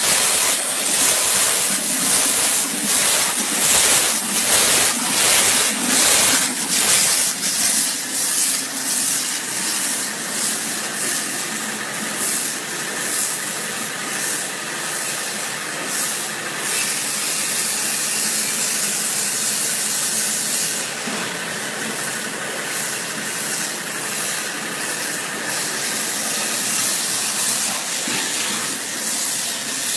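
CNC waterjet cutter's high-pressure water jet hissing loudly, pulsing unevenly for the first several seconds and then running steadier.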